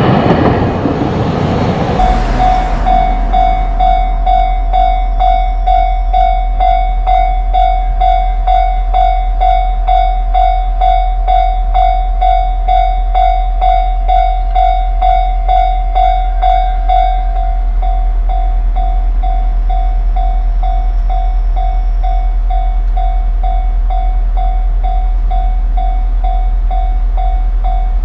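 Japanese railway level-crossing electronic warning bell ringing at about two strikes a second, the signal that a train is approaching. In the first two seconds there is a rushing train noise that cuts off abruptly.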